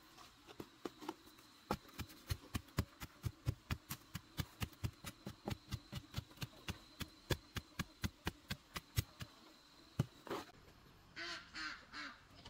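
A wooden stick pounding soil to tamp it around a newly set wooden post: an even run of thuds, about four a second, that stops about nine seconds in. Near the end a duck quacks three times.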